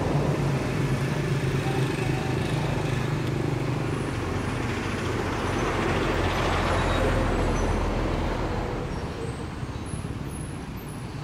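A motor vehicle running with a steady low engine hum and road noise, getting louder towards the middle and then fading away over the last few seconds as it passes.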